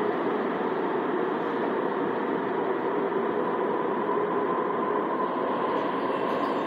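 Alstom Citadis Spirit light rail train standing at an underground station platform, giving a steady hum from its running onboard equipment. A faint whine comes in near the end.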